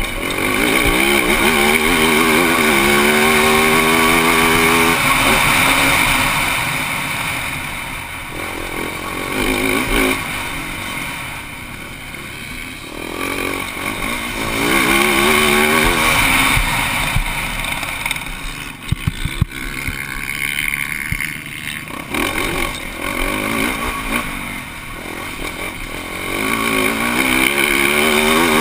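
Motocross bike engine heard close from the rider's helmet camera, revving up hard and easing off in repeated surges as it rides the track. A few sharp knocks come about two-thirds of the way through.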